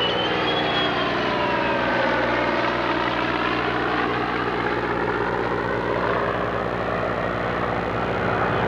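F-14 Tomcat jet and F6F Hellcat, with its Pratt & Whitney R-2800 radial engine, flying past together in formation: a steady droning roar of jet noise and propeller engine. Its tones sweep down and back up during the pass.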